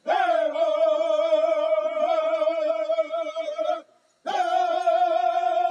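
Southern-style powwow singing by a group of men in unison, high and held: one long note with a wavering pitch for almost four seconds, a brief break, then another long note begins.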